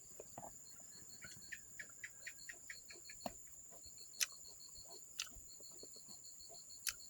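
Insects calling, crickets among them: a steady high-pitched trill with a rapidly pulsing chirp beneath it that starts and stops. Scattered faint sharp clicks sound over it, four of them louder than the rest.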